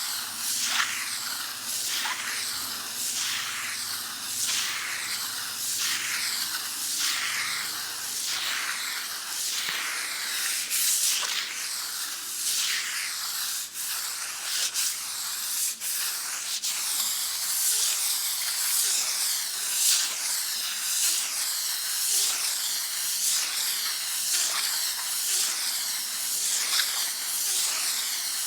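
Sandpaper rubbed back and forth on a wall: a steady, scratchy rasp in even strokes, about one and a half a second.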